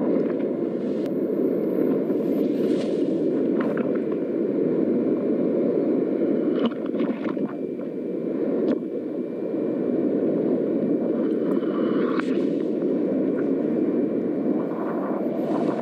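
Whitewater rapids rushing around a kayak, a steady, muffled roar of water picked up by the paddler's own action camera, with a few short knocks or splashes along the way.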